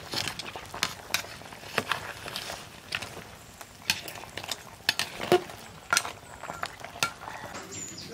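Long metal spatula stirring and scraping cow-leg pieces in a metal cooking pot, with irregular clinks against the pot, roughly two a second, over a faint sizzle of the cooking curry.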